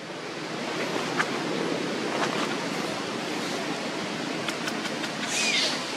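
Steady rushing outdoor noise, most likely wind across the microphone, with a few faint ticks and one short high squeak falling in pitch near the end.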